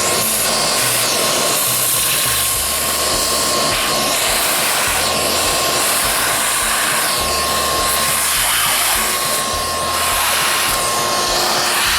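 Vacuum cleaner running steadily through a hose, a loud rushing of air with a thin steady whine.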